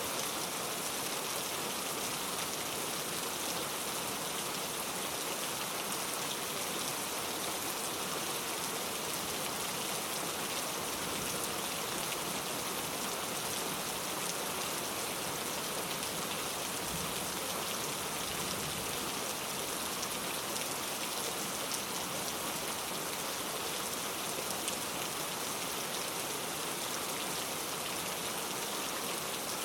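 Steady rain falling on a surface, an even hiss of drops with no thunder.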